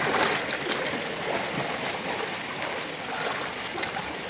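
Pool water splashing and sloshing around a swimmer's strokes, with the most splashing about the start as the head breaks the surface, then steady churning of the water.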